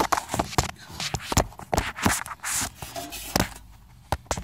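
Handling noise from a phone being held and fiddled with: fingers rubbing, scraping and tapping on its body near the microphone, in an irregular run of knocks and rustles.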